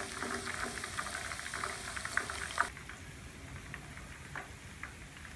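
Thin-sliced shallots frying in hot oil, a dense sizzle and crackle of small pops. Almost three seconds in it drops suddenly to quieter, sparser pops.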